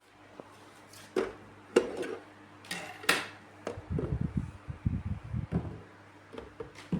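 Handling noise: a series of sharp clicks and knocks, then a run of low rubbing thuds in the middle, and another knock near the end, over a faint steady low hum.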